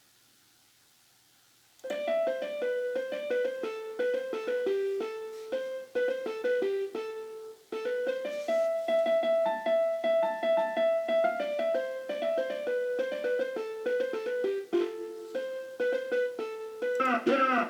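Recording of a Casio Casiotone keyboard's internal sound played back: a quick melody of single notes in a piano-like tone. It starts after about two seconds of near silence, has one long held note midway, and a busier, louder passage begins near the end.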